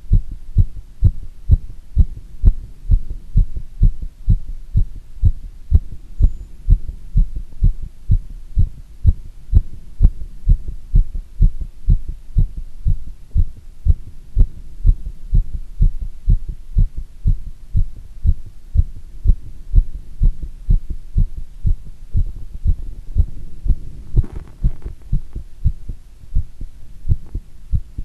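Human heartbeat during squats: a steady, even rhythm of low thumps, about two a second. A brief rustle comes about 24 seconds in.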